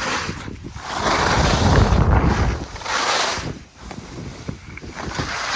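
Wind buffeting the microphone in gusts: a low rumble with hiss that swells about a second in, eases, and swells again around three seconds.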